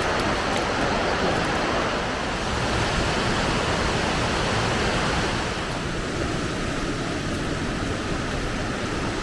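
Rushing water of cascades: a steady, dense noise that thins a little in its upper part about halfway through.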